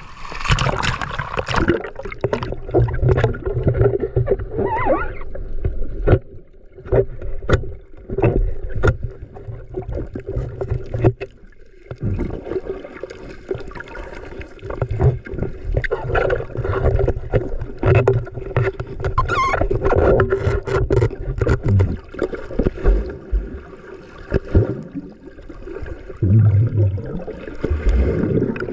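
Water sloshing and gurgling around a small boat, with frequent short knocks and splashes over a steady hum.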